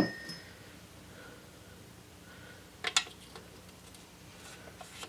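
Light metal clicks of a steel valve tappet being handled and pushed into its guide in a small engine's crankcase: a sharp click with a brief ring at the start, another about three seconds in, and a few faint ticks near the end.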